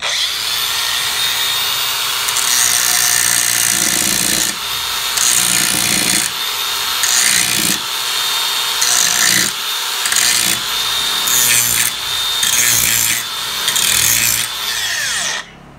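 Cordless angle grinder switched on and run hard for about fifteen seconds, its sound rising and dipping about once a second, then switched off and winding down with a falling whine near the end.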